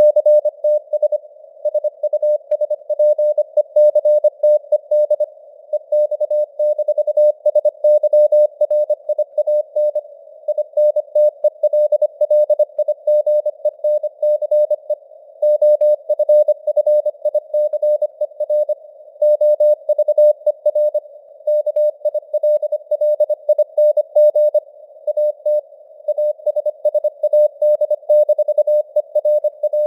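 Computer-generated Morse code (CW) at 25 words per minute, sending news headlines: a single mid-pitched beep keyed rapidly into dots and dashes. A soft band of simulated radio hiss around the tone fills the gaps between elements.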